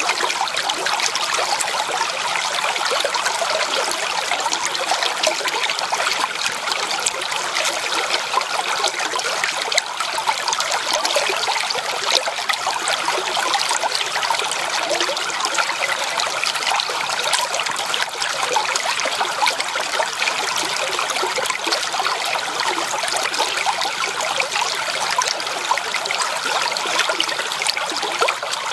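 Shallow creek water running over rocks: a steady, unbroken rush of many small splashes.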